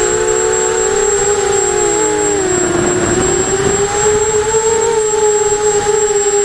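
Eachine 250 racing quadcopter's brushless motors and propellers whining at several slightly different pitches. The pitch dips about two and a half seconds in, with a rush of air noise, then climbs back as the throttle changes, over a thin steady high tone.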